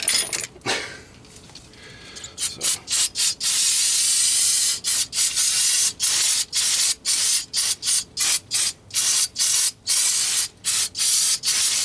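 Aerosol brake cleaner spraying: a long hissing spray, then a run of short bursts with brief gaps between them.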